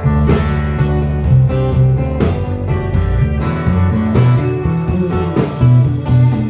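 A live blues-rock band playing an instrumental break, with guitar to the fore over bass and drums, the drums hitting on a steady beat.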